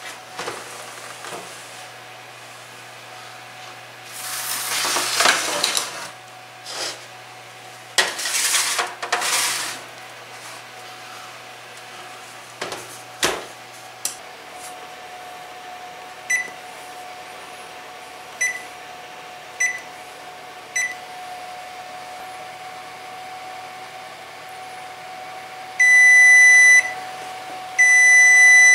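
Electric oven door being opened and a baking pan slid in with two rushing scraping sounds, then the door shut with a deep thud. After that the oven's electronic control panel beeps: four short keypad beeps, then two longer beeps near the end.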